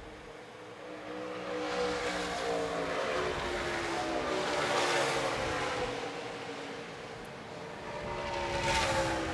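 NASCAR Truck Series race trucks' V8 engines running at speed on the track, passing by in three swells, the engine note falling as each one goes past.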